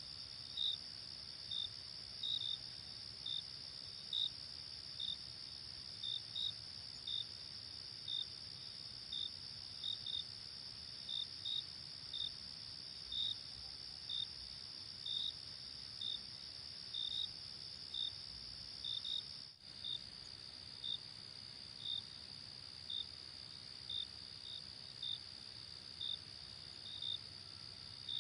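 Crickets chirping: a steady high-pitched trill with separate short chirps on top, about one or two a second at uneven spacing. The sound briefly drops out about twenty seconds in.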